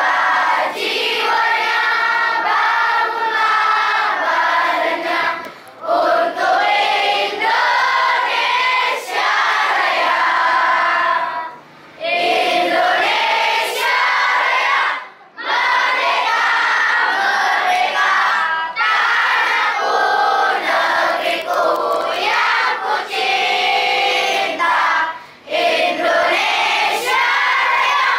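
A large group of children singing together loudly in unison, phrase after phrase, with brief pauses between the phrases.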